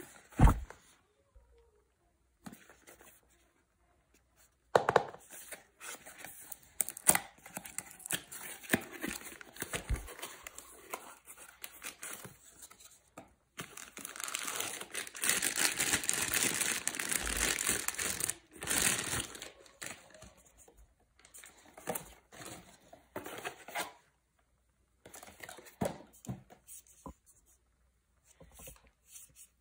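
Cardboard box and paper packaging handled and opened by hand: scattered rustling, scraping and light knocks, with a continuous rustle for about five seconds midway as the paper-wrapped contents are drawn out of the box.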